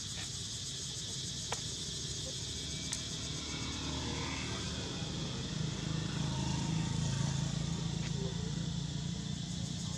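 Outdoor ambience: a steady, high insect drone, with a low rumble that swells from about halfway through and eases off near the end.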